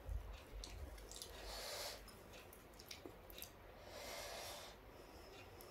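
Two soft breaths, about a second and a half in and again near four seconds, over faint clicks and rustles of fingers tearing a dosa and dipping into a steel bowl of sambar.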